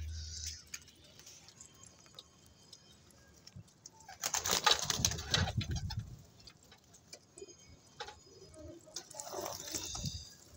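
Domestic pigeons cooing and pecking close to the microphone, with scattered small clicks. A loud, close flurry of scuffling and wing flaps starts about four seconds in and lasts about two seconds.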